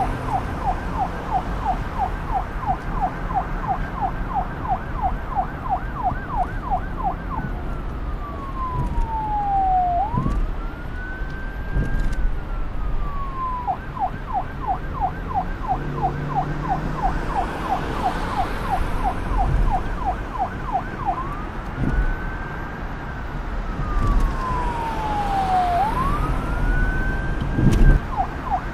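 Police siren alternating between a fast yelp, about four warbles a second, and a slow wail that falls and then rises; the yelp runs for several seconds, gives way to the wail, returns, then the wail sounds again before the yelp resumes near the end.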